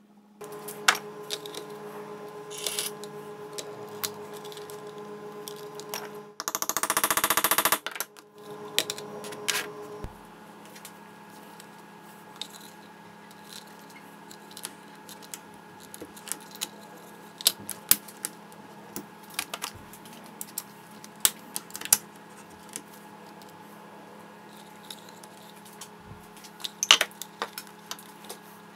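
Small metal snap parts clicking and clinking as they are handled and fitted onto the die of a hand-operated snap-setting press. About six seconds in there is a dense rattle lasting just over a second, over a steady low hum.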